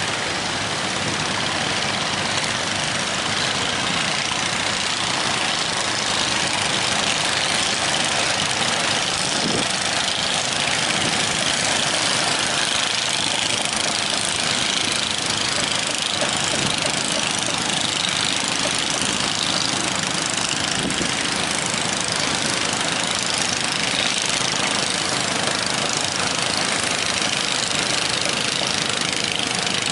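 Fishing boat's engine running steadily, at an even level throughout.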